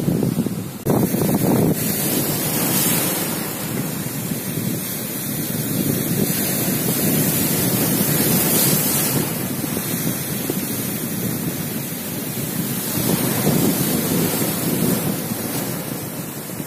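Sea surf breaking and washing over boulders and a pebble shore, a steady rush that swells and ebbs, with wind buffeting the microphone.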